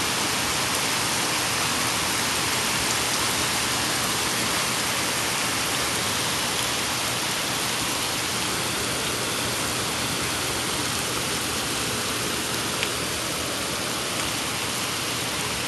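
Heavy rain falling steadily: a constant, even hiss of rain hitting the ground.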